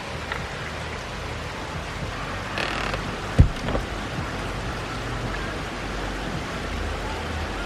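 Rain falling steadily on pavement and grass, an even hiss of rain, with one sharp loud thump about three and a half seconds in.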